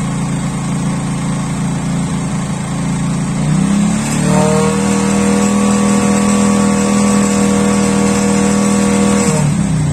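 Motorcycle engine running on part throttle: it revs up about four seconds in, holds steady at the higher speed, around 3,000 to 4,000 RPM and short of full throttle, then drops back near the end.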